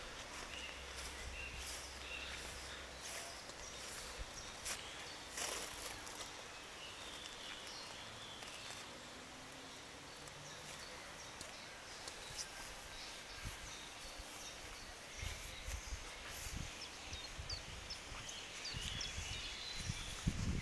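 Faint outdoor garden ambience with scattered small clicks and a few faint high chirps. Low handling thumps from the handheld camera come in over the last few seconds.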